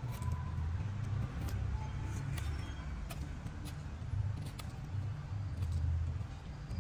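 Kitchen knife shaving and whittling the end of a sweetsop stem cutting, giving scattered short scraping clicks. Under it runs a steady low rumble, which is the loudest thing.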